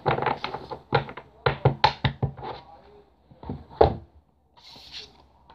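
Card decks and their card boxes handled on a tabletop: a quick run of light taps and clicks, with one sharper knock a little before four seconds. A brief soft rustle follows about five seconds in.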